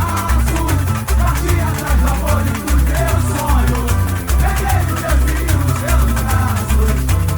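Samba-enredo played live by a samba school percussion section: a steady deep surdo beat under busy rattling shakers, with melody above it.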